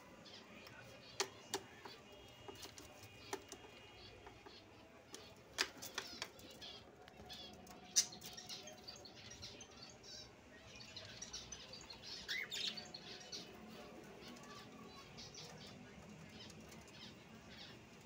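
Soft wing flaps as a pet cockatiel flutters about, with several sharp taps in the first half. A few brief chirps come from the caged birds later on.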